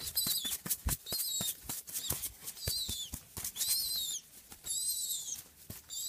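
A young pigeon squab making a series of high, squeaky begging calls while being fed from a syringe, about one call a second, each dropping in pitch at its end. Small clicks come in between, from the beak working at the feeding tip.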